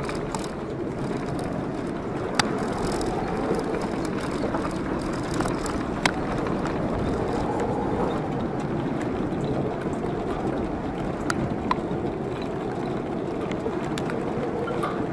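Jeep Wrangler JKU driving slowly up a gravel trail: steady engine and tyre noise, with a few sharp clicks and knocks scattered through it.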